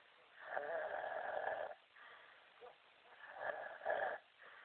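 A man snoring heavily. One long snore starts about half a second in, and a second snore with two surges comes about three seconds in.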